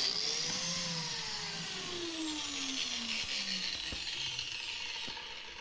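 Biscuit joiner's electric motor running at speed, then switched off and winding down, its whine falling steadily in pitch over about three seconds.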